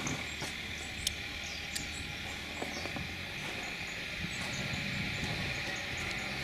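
Outdoor ambience with a steady hiss, faint high chirps and scattered light clicks, ending in one sharp click; the car's engine is not yet running.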